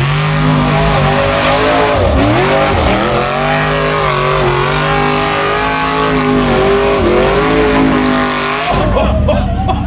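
Formula Offroad buggy engine revving hard at high rpm as the buggy climbs a steep dirt hill, its pitch rising and falling with the throttle and dipping briefly a couple of times. The engine note drops away near the end.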